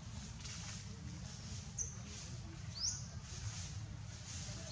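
Two short, high chirps rising in pitch, about a second apart, over a steady low rumble and a faint hiss that swells and fades about twice a second.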